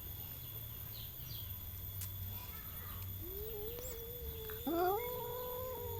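Domestic cats yowling in a territorial standoff: a long low moan rises about halfway in, and a louder drawn-out yowl starts near the end.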